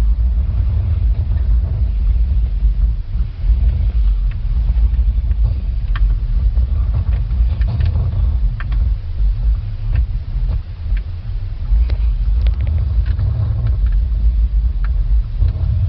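Low, uneven rumble from a BMW E39 525, the noise put forward as the car's sound problem, with a few faint sharp clicks about six, eight and twelve seconds in.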